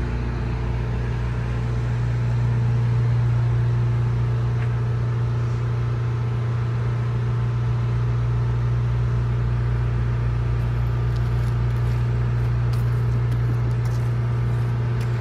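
Steady low mechanical hum with an unchanging pitch, like an engine or machine running.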